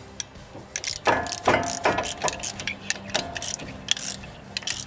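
Hand socket ratchet clicking in quick, irregular runs of strokes as a lightly torqued bolt is backed out of a truck's front wheel hub, with a few ringing metal clinks about a second in.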